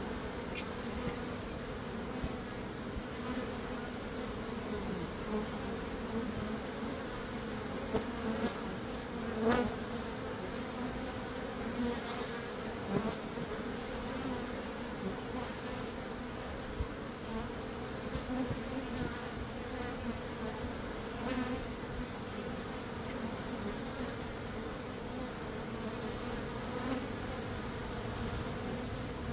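Bees buzzing in a steady hum, now and then swelling briefly louder, most clearly about ten seconds in.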